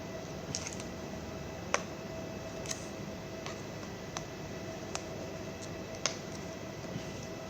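Sparse light clicks and taps, roughly one a second at uneven intervals, over a steady hiss with a faint constant hum.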